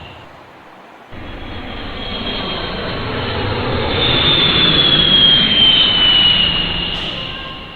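Large jet aeroplane's engines running as it goes by: a loud rush with a high whine that slowly falls in pitch, swelling to its loudest mid-way and then fading. It starts abruptly about a second in.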